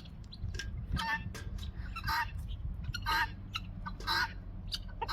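Farmyard poultry calling, a short harsh call about once a second.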